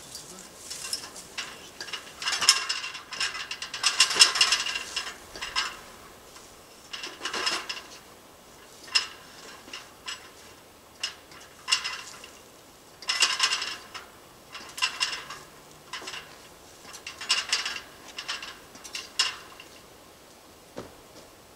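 A tool working in repeated short bursts at irregular intervals, each a second or less, with a metallic ringing in each burst.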